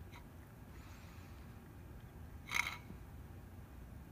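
A cat eating from a plastic bowl on concrete, over a steady low rumble. About two and a half seconds in there is one short, sharp sound, likely the bowl knocked or scraped against the pavement.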